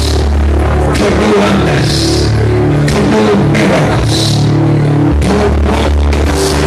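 Loud church music: held low keyboard-like chords and bass notes over a beat, with a bright cymbal-like splash about every two seconds.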